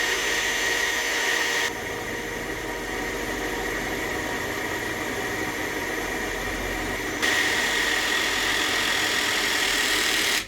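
A handheld power tool motor running steadily with a high whine. It drops in level about two seconds in, comes back up near the end, then cuts off abruptly.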